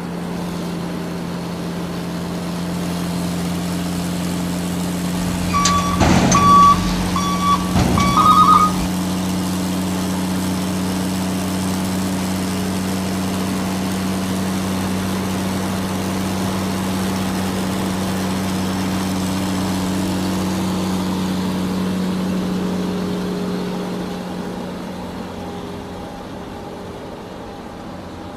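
Truck engine running steadily, with a short series of about five high beeps mixed with a few knocks about six to eight seconds in, like a vehicle's reversing alarm. The engine fades slightly near the end.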